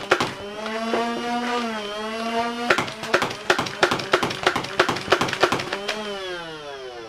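Nerf Rival Zeus blaster's motorized flywheels spinning up to a steady whine. From about a third of the way in, a rapid string of shots, about four a second and each a sharp crack, as foam balls are fired. The flywheels then wind down with a falling whine near the end.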